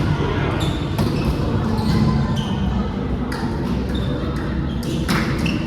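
Volleyball play: a ball struck and hitting the floor in a few sharp smacks, about four in all, with players' voices in the background.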